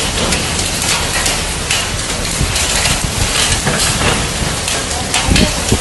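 Hailstorm with heavy rain: a dense, steady hiss of falling rain crowded with sharp hailstone hits on hard ground, with a few deeper thumps near the end.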